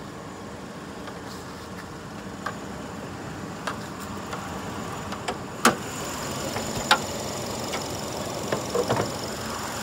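Hood latch of a 2007 Chevrolet Colorado pickup being released and the hood lifted: two sharp clacks a little over a second apart past the middle, then a few lighter clicks. Under them runs the steady hum of the truck's engine idling.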